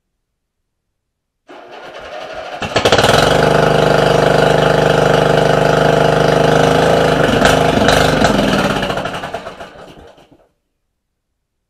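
Lawn tractor's small gasoline engine cranked on its electric starter. It catches after about a second, runs loud and steady for about five seconds, then is shut off and sputters to a stop.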